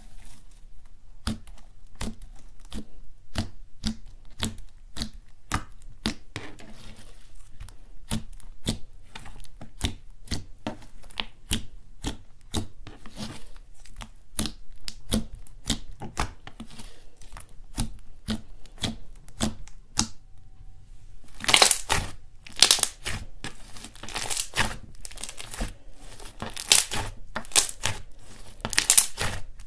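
Hands poking and squishing pink slime, making quick sticky clicks and pops about two or three times a second. From about twenty-one seconds in, louder, longer crackling as the slime is stretched and pulled apart.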